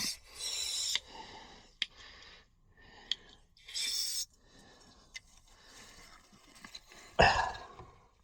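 Two short bursts of aerosol cleaner spray hissing onto a gunked-up uPVC lock gearbox, with small clicks of handling between them. A louder clunk comes near the end.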